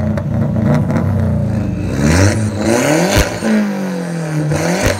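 Car engine revved hard through a loud performance exhaust, the revs climbing and dropping again and again, with a sharp crack near the top of the revs twice.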